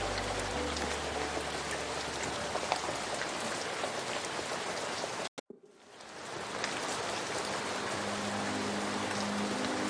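Steady rain patter with scattered drop ticks under soft, slow ambient music. The music fades away early on. About halfway through the sound cuts out briefly, as at a break between playlist tracks, and the rain fades back in, with the music returning near the end.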